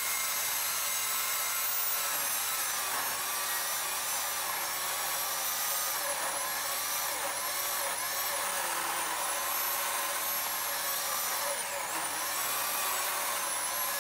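Electric chainsaw with an 18-inch bar, mounted in an Alaskan chainsaw mill, ripping lengthwise through a log: a steady high motor whine with chain-cutting noise, its pitch dipping and recovering several times as the load on the motor changes.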